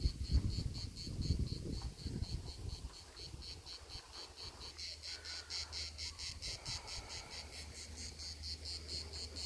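Crickets chirping in a rapid, even rhythm of about five pulses a second, growing louder about halfway through.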